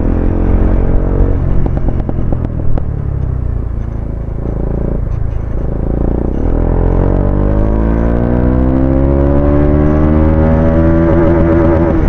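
Bajaj Dominar 400 single-cylinder engine running under way. About halfway in, its note climbs steadily as the bike accelerates, then levels off near the end.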